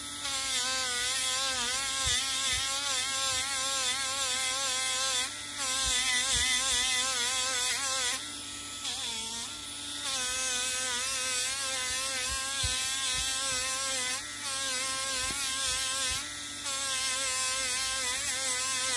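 Small handheld rotary tool running with a brush wheel, its high motor whine wavering in pitch as the spinning brush scrubs the black oxide film off a heated copper ball, with a hiss from the brush on the metal. The scrubbing eases off briefly several times, longest about eight to ten seconds in, when the pitch of the whine shifts.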